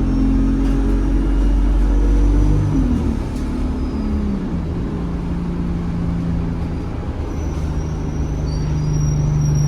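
ADL Enviro 200 bus engine running, with a thin high turbo whistle above it. The engine note falls away about three seconds in, then settles into a steady hum.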